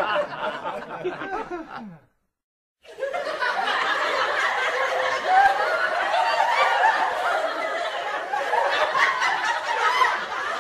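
A group of young people laughing together, several voices overlapping. The sound drops out completely for under a second about two seconds in, then the laughter picks up again.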